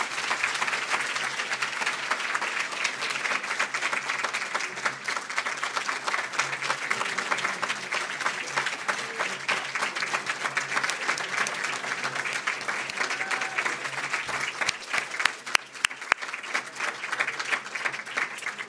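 Audience applauding at the close of a speech: dense, steady clapping that thins out near the end, with a few louder single claps standing out.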